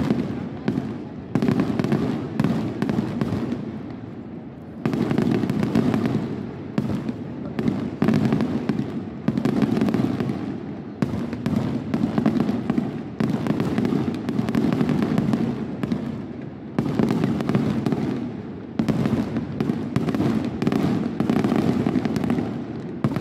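Aerial fireworks display: shells bursting one after another, a new loud bang every second or two, each trailing off into crackle.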